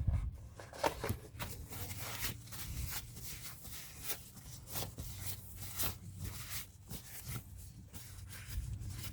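Rag wiping excess grease off a brake caliper slide pin and its rubber boot: quiet, irregular rubbing and rustling strokes.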